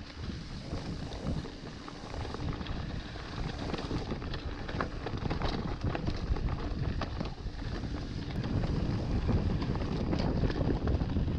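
Wind buffeting the microphone of a mountain bike ridden fast down a dirt trail. The tyres rumble over the ground, with scattered clicks and rattles, and it all grows louder over the last few seconds.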